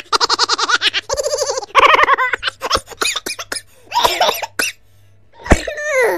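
A baby laughing in quick bursts of high-pitched giggles, with short pauses between the runs. Near the end comes a single sharp click, then a squeal that falls in pitch.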